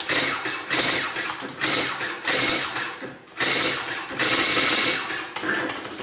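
Juki 6100 daisy wheel printer printing characters as they are typed: its print hammer and wheel clatter in rapid bursts of strikes with short pauses between them.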